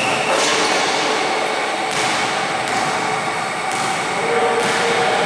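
Steady, echoing noise of a gym during a pickup basketball game, with a couple of dull thuds and faint voices of the players.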